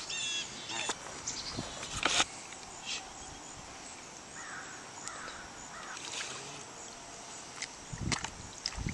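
Outdoor pond-side ambience with a few bird calls, near the start and again midway, over scattered clicks and rustles of handling.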